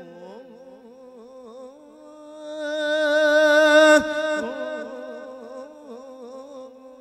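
A monk's voice drawing out wordless melismatic notes in Isan thet lae sermon chant, wavering throughout. It swells into a louder note with vibrato about two and a half seconds in, breaks off abruptly about four seconds in, and a fainter held tone carries on.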